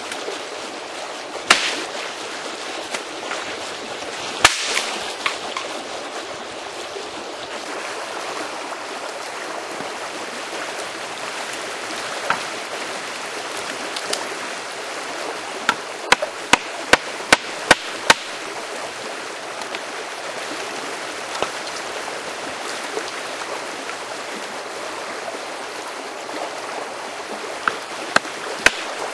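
Creek water running steadily, with scattered sharp knocks over it and a quick run of about seven knocks midway.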